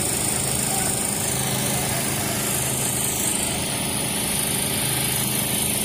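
A steady engine drone with a constant low hum, unchanging throughout.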